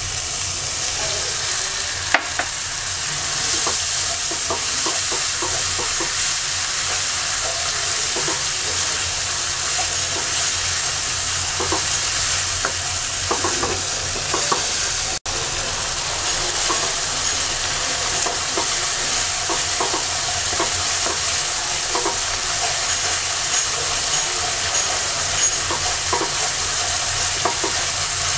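Spice paste frying in oil with a little water in a karahi, a steady sizzle while it is stirred, with scattered light clicks and scrapes against the pan.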